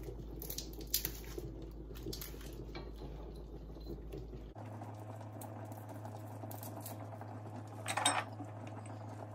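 Pot bubbling on the stove, with a few light clinks of a glass jar and utensil as bouillon is spooned into the sauce; a short, louder knock about eight seconds in.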